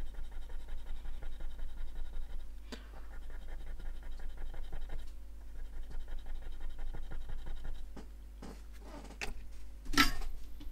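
Quick, repeated scratching strokes, about four a second, of a tool scraping the protective coating off a MacBook Pro display backlight flex cable to expose its broken traces for repair. A louder sharp knock comes about ten seconds in.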